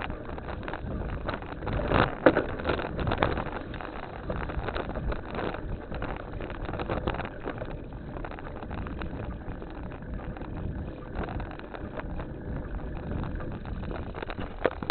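Bicycle being ridden over rough ground: steady tyre rolling noise with the bike rattling and knocking over bumps, a louder knock about two seconds in.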